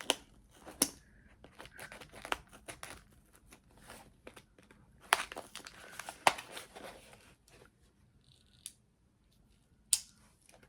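Packaging being torn open and crinkled by hand, in irregular sharp crackles and clicks, busiest in the middle and dying away near the end.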